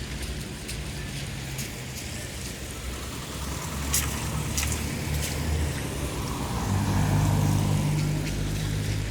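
Light town traffic on a wet road: vehicle engines hum steadily over the hiss of tyres on wet asphalt, and one engine grows louder about two-thirds of the way through. Three sharp taps come about half a second apart in the middle.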